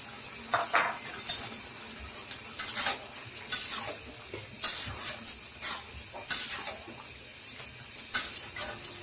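Metal spatula stirring vegetables in a cooking pan, with irregular clinks and scrapes against the pan.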